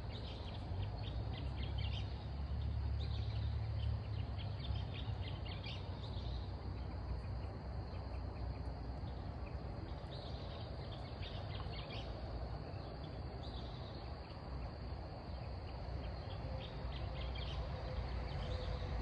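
Outdoor night ambience: clusters of short, high chirping calls from small animals recur irregularly over a steady low rumble, which is heaviest in the first few seconds.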